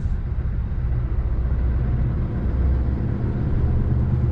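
Heavy lorry's diesel engine running at low speed, heard from the cab as a steady low rumble.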